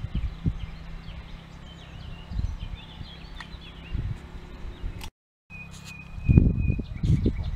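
Wind buffeting the microphone in irregular low thumps, strongest near the end, with small birds chirping in the trees. The sound cuts out for a moment about five seconds in, then a thin, steady high whistle runs for a second or two.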